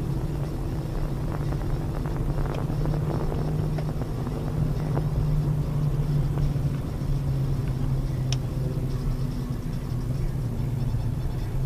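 Car driving: steady engine hum and road noise as heard from inside the cabin, with a few faint clicks.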